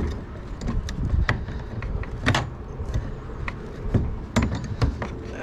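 Metal tool prying and knocking at a bearing pressed onto an electric motor's shaft: irregular metal knocks and scraping, the bearing staying put because it is pressed on tight.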